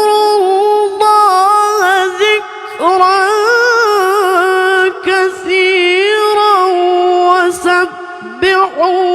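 Quran recitation by a single high voice, unaccompanied, in a melodic tajweed style: long held notes decorated with quick ornamental turns, broken by a few short pauses for breath.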